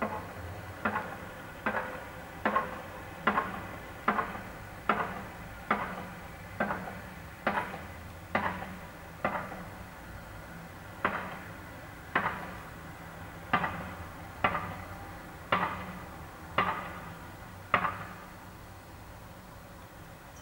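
A hand tool striking repeatedly at a manhole under repair: sharp knocks, each with a short ringing tail, roughly one a second. The blows pause briefly about halfway and stop near the end.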